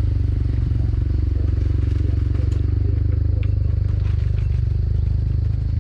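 A small engine running steadily at a low, even speed, with faint clattering ticks over it.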